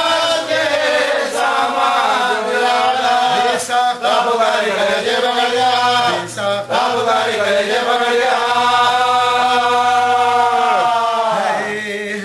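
A man chanting an Urdu mourning elegy for Imam Husain from a book, without instruments, in long drawn-out notes that bend and waver. The phrase falls in pitch and fades near the end.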